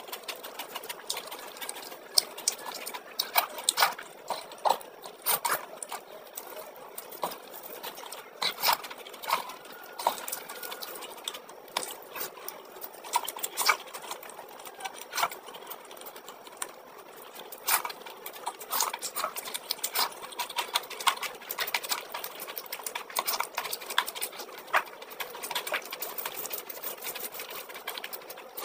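A person chewing with the mouth open and smacking the lips while eating chicken curry and rice by hand: a dense run of irregular wet clicks and smacks.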